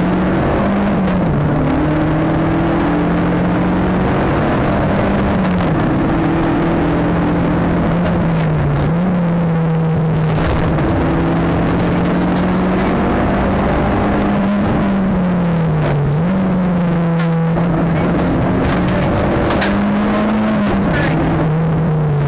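Nissan Sunny GTi-R rally car's turbocharged four-cylinder engine heard from inside the cabin at full stage pace, running at high revs with road noise underneath. The engine note dips and climbs back several times, then drops away near the end.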